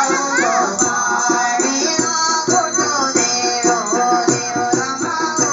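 Musadha folk music: singing voices with a plucked long-necked stringed instrument and a steady beat of small hand-held percussion.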